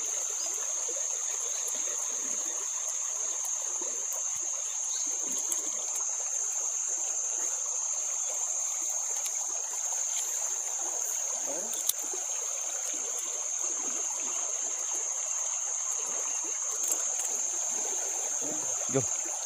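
Shallow stream rippling over stones, with a steady high-pitched insect drone over it and a few brief sharp clicks.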